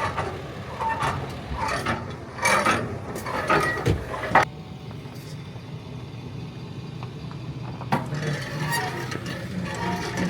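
Metal clanks and knocks of a trailer hitch being handled and uncoupled from a pickup, several sharp ones in the first few seconds and more clatter near the end, over a pickup truck engine running steadily.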